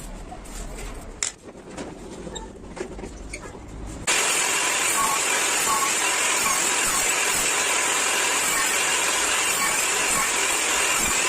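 A few light clicks and knocks over a low hum, then about four seconds in a woodworking power tool cuts in loud and runs steadily.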